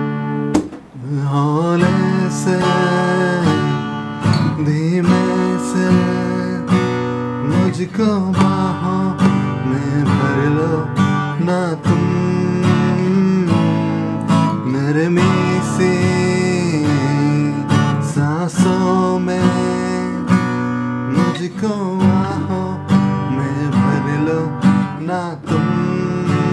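Acoustic guitar strummed as song accompaniment, with a man's voice singing along.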